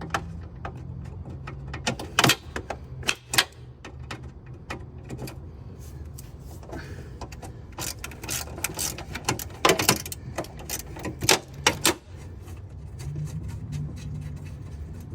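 Hand ratchet with an extension and 10 mm socket loosening bolts, giving irregular runs of ratchet clicks and metal clinks of the tool, several of them close together near the end.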